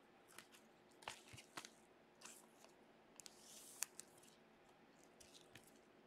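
Gloved hands handling a baseball card and clear plastic card sleeves: faint crinkling and scattered clicks, the sharpest a little before four seconds in.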